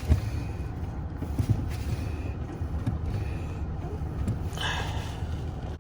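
Steady low rumble of a car, with a brief faint noise near the end and no clear squeak: the brake pedal, just treated with Blaster lubricant, no longer squeaks.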